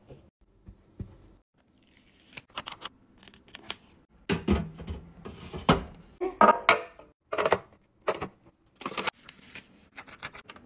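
Clear plastic stacking storage drawers being handled: a string of sharp plastic clicks, taps and knocks, sparse at first and busier from about four seconds in.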